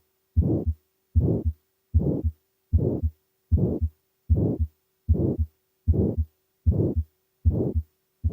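Heart heard through a stethoscope in aortic stenosis: at each beat a murmur fills systole between the first and second heart sounds. The beats are regular, about 75 a minute, with silence between them.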